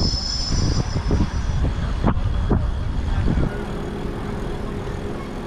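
Wind buffeting the microphone and tyre rumble on asphalt while riding an electric motorcycle, with a few knocks from bumps. About three and a half seconds in it drops to a quieter, steadier ride with a faint steady hum.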